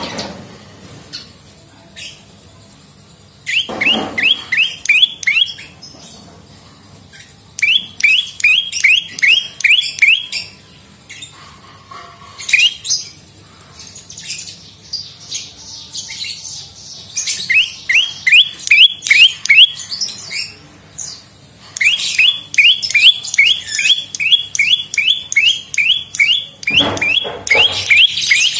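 Prenjak lumut, a small warbler-type songbird, singing in fast runs of sharp, repeated notes, each a quick downward sweep, strung into phrases of one to three seconds with short pauses and scratchy chattering between.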